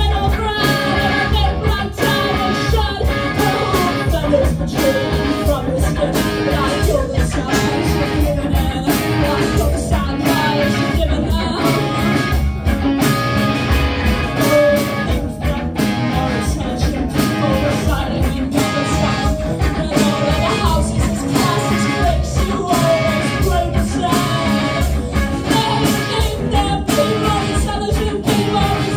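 A live rock band playing: electric guitars, bass guitar and drums with a sung lead vocal, at a steady driving beat.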